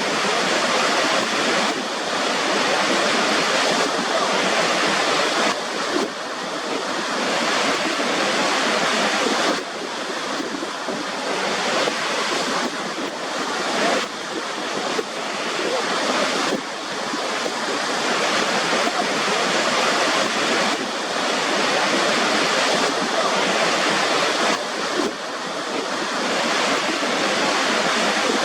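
Rushing water: a steady, dense noise that dips briefly in level every few seconds.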